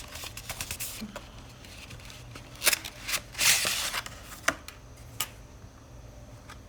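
Plastic packaging being handled and torn open: scattered rustles and clicks, then several sharp rips and a longer tearing crinkle, dying down near the end.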